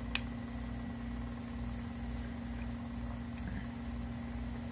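A steady low background hum, with a sharp click of a metal spoon on the plate just after the start and a fainter click about three seconds later.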